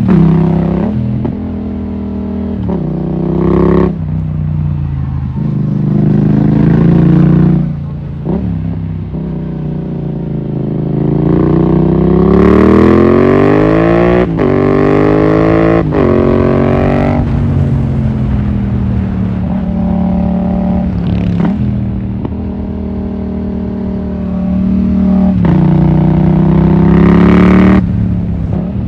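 Yamaha MT-07's parallel-twin engine under way, rising in pitch under throttle and breaking off sharply at each gear change, about four times in the first half, then running steadier before pulling up again near the end.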